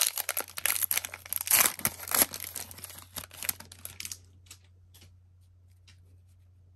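Trading-card pack wrapper being torn open and crinkled, a dense crackling for about four seconds that thins out to a few crinkles.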